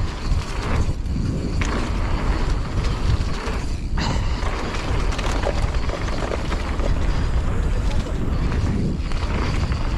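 Mountain bike rolling down a dirt trail, its tyres on the ground and frame and parts rattling over bumps, under strong wind buffeting a helmet-mounted action-camera microphone.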